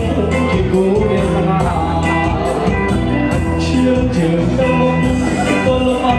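Background music with singing and a steady beat.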